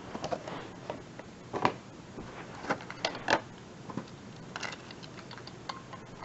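Irregular light clicks and taps of plastic being handled, a toy and its packaging, with two sharper clicks about one and a half and three seconds in.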